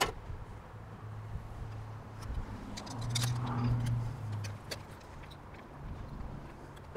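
Light metallic clicks and clinks of a steel barge capping flashing being handled and positioned by hand. Behind them a low engine hum swells up and fades away, loudest near the middle.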